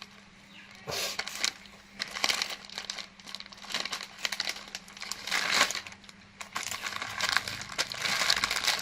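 Plastic rice-cracker wrapper crinkling in irregular bursts as it is handled, starting about a second in.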